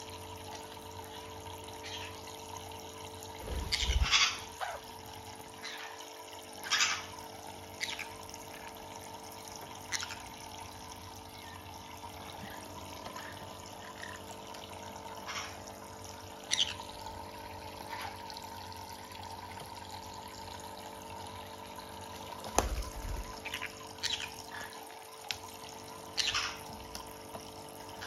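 Thin stream of water from a bird bath's small faucet trickling steadily into the plastic basin, over a steady hum. A handful of short sharp clicks and knocks break in now and then, two of them with a low thump, near four seconds and past twenty-two seconds.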